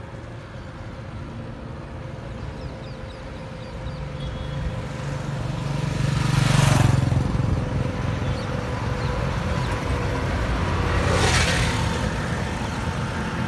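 Road traffic on a multi-lane highway: heavy lorries and motorcycles drive past, their engine and tyre noise swelling into two close pass-bys, the louder about six and a half seconds in and another about eleven seconds in.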